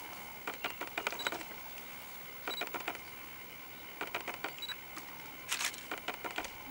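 Outdoor ambience: a steady high drone, like insects, with bursts of rapid clicks and rattles every second or two.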